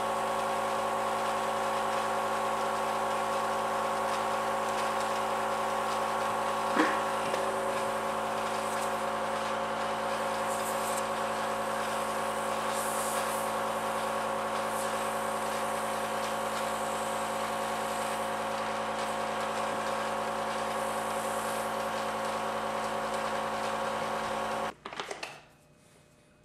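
Airbrush air compressor running with a steady electric hum, a faint click about seven seconds in, then shutting off suddenly near the end.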